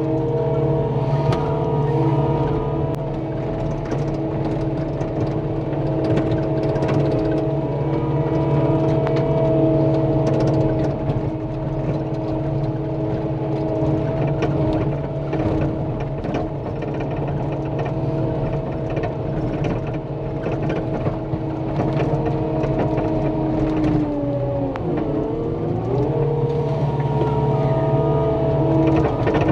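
Cat 259D compact track loader's diesel engine running at steady high revs while grading dirt, its pitch sagging briefly under load about 25 seconds in and then recovering.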